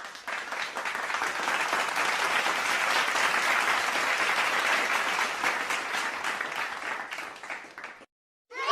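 Crowd applause: many hands clapping, building over the first couple of seconds, then thinning out and cutting off abruptly about eight seconds in.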